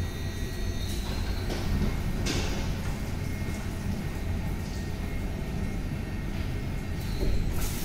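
Tammermatic T700 Turbo rollover car wash machinery running with a steady low motor hum and short hissing sprays, as the program moves from the brush wash into the wax stage. Near the end a louder spray of water starts.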